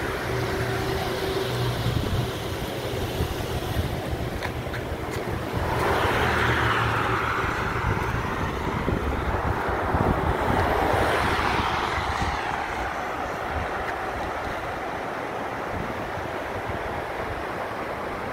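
Road traffic: a low engine hum, then a car passes, its noise swelling about six seconds in and fading away over the next six seconds.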